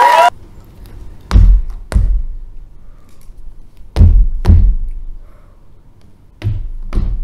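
Music with held tones cuts off just after the start. Then come heavy thuds on the stage, in three evenly paced pairs: two thuds half a second apart, repeated about every two and a half seconds.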